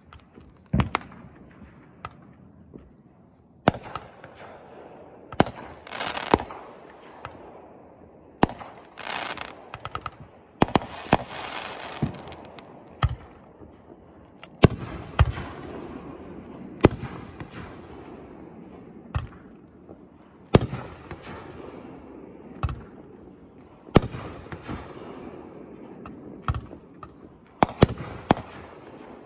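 Aerial fireworks display: shells bursting overhead in a run of sharp bangs, about one every second or two, with stretches of crackling between the bangs.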